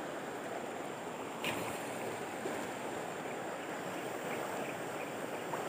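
Shallow river water running steadily over rocks, with one brief click about one and a half seconds in.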